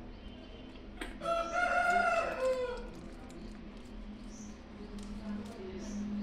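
One long animal call about a second in, holding its pitch and then falling at the end, over a faint steady low hum.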